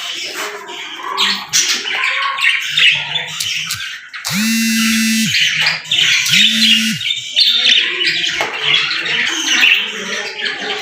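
A group of budgerigars chattering and chirping continuously, with rapid warbles and squawks. Near the middle, a steady low note sounds twice, once for about a second and once more briefly.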